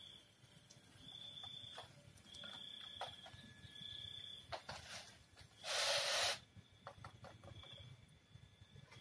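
Night insects trilling: a high, steady tone repeated in short spells of under a second each, with scattered light clicks and rustles. About six seconds in, a loud hiss lasting under a second stands out above everything else.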